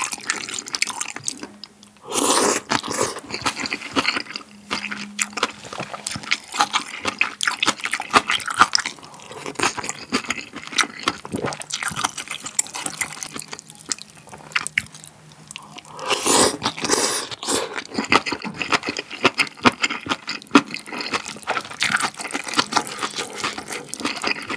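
Close-up eating sounds of tomato malatang: corn noodles and rice noodles slurped and chewed, with wet smacking and clicking of the mouth. Two longer, louder slurps come about two seconds in and again about sixteen seconds in.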